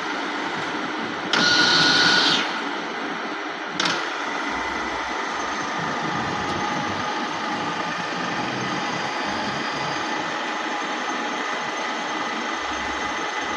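Dufour 221 universal milling machine running steadily, a mechanical hum with faint steady whining tones. About a second in, a louder hissing burst lasts about a second; then a sharp click, and the machine runs on evenly.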